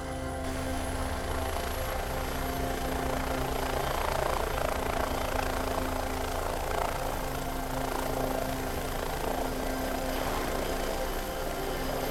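MBB Bo 105 helicopter running on the ground with its rotor turning: a steady turbine whine over a fast rotor chop.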